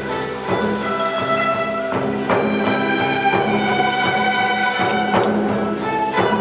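Live Chinese folk ensemble playing: a melody of held notes moving in steps, over repeated plucked guzheng chords.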